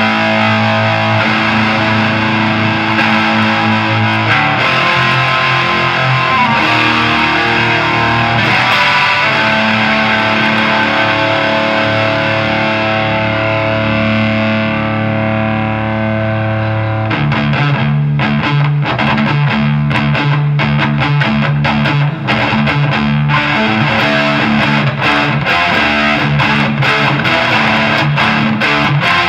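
Distorted electric guitar played through a Snake Oil Fine Instruments Marvelous Engine overdrive pedal: held, ringing chords, then from about 17 seconds in a choppier rhythmic riff with quick, clipped strokes.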